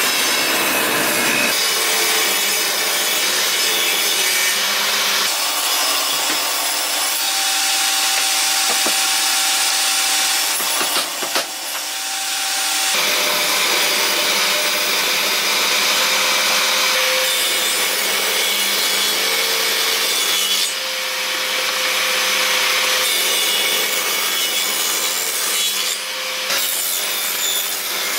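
Benchtop table saw running and ripping a pine board: a steady, loud whine of the motor and blade with the hiss of the cut. Its tone shifts several times.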